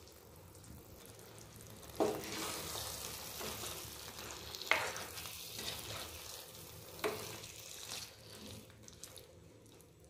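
A spatula stirring chicken pieces and curd in a non-stick kadai over the heat, with a light sizzle. It starts about two seconds in, with three sharp scrapes of the spatula against the pan, and dies down near the end.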